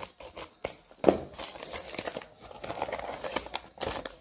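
Plastic mailer packaging crinkling and rustling as it is cut open with scissors and pulled apart by hand, with a louder crackle about a second in.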